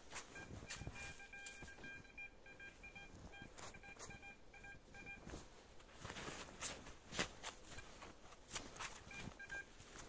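Metal detector's target tone: a steady pitched beep, chopped into quick repeated pulses for about five seconds, then a run of clicks and scrapes, with a short beep again near the end.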